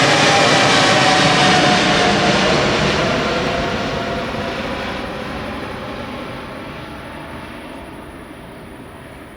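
Boeing 777-300ER's GE90-115B turbofans at takeoff thrust going past, a loud jet roar with a whine that falls in pitch over the first couple of seconds, then fading steadily as the aircraft moves away.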